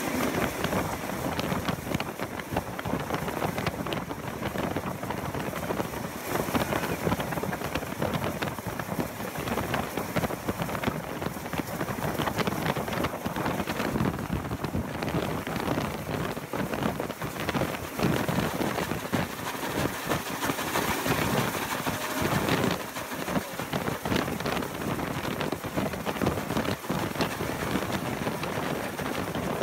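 Two steam locomotives, 3016 and NSW C36 class 3642, running side by side on parallel tracks at speed: a steady, dense rush of exhaust, wheel and rail noise, with wind on the microphone.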